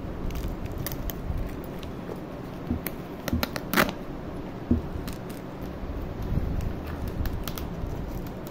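Scissors snipping and plastic wrapping and packing tape crackling as a taped cardboard parcel is cut open: scattered short clicks and crinkles, the sharpest a little under halfway through.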